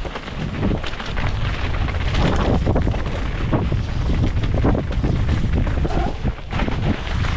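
Wind buffeting the helmet camera's microphone as a mountain bike rides fast down a dirt trail, with the rumble of tyres on the ground and frequent knocks and rattles from the bike over rough terrain.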